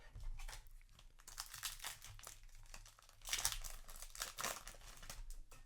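Foil Yu-Gi-Oh! booster pack wrapper crinkling as it is handled and torn open, in two louder spells of rustling.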